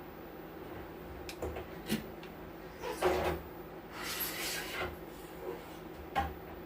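Scattered clicks and knocks of tools and parts being handled on an electronics workbench, with a louder knock and rustle about three seconds in and a brief hissy rustle after it, over a low steady hum.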